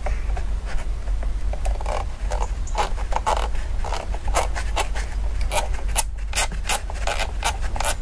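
Metal scraping and clicking as the top ring of an Amal 275 pre-monobloc carburettor is worked onto its mixing chamber by hand, with a run of quick sharp clicks, about three or four a second, in the second half.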